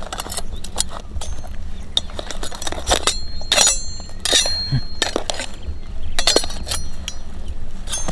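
Irregular sharp clicks and clinks of a metal rod and a knife blade knocking against live mud crabs' hard shells and claws, a few of them with a brief high metallic ring.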